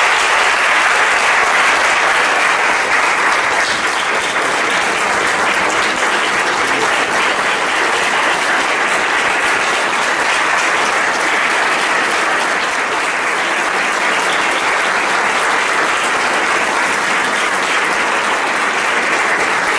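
Audience applauding: a dense, steady round of clapping.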